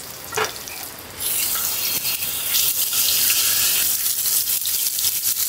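Pork sizzling loudly and steadily in a hot pan. The sizzle starts suddenly about a second in, as the meat goes onto the hot surface.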